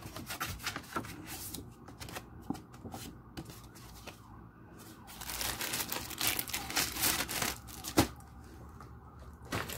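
Sheets of purple card stock handled and shuffled: paper sliding and rustling against paper, busiest a little past the middle, then two sharp taps near the end as items are set down.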